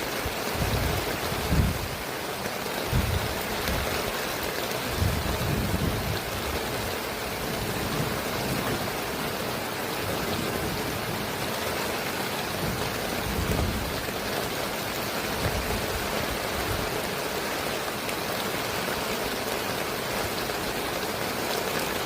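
Heavy rain falling steadily, with gusts of strong wind that rumble low in the first several seconds and again around the middle.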